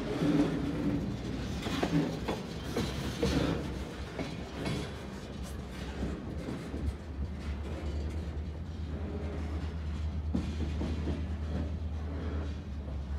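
Freight cars rolling slowly over yard track, their wheels knocking over rail joints about every second and a half, with short wheel squeals during the first few seconds. The knocking then eases and a steady low rumble builds in the second half.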